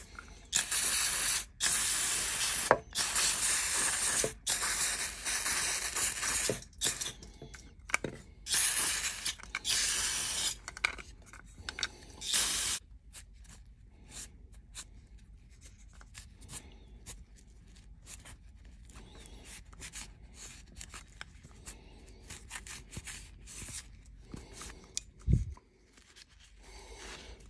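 Aerosol cleaner sprayed in a string of hissing bursts, each a second or two long, to clean a distributor's O-ring seat. About thirteen seconds in the spraying stops and gives way to quiet rag wiping and handling.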